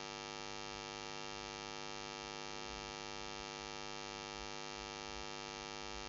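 Steady electrical mains hum with a buzzy stack of overtones, unchanging throughout.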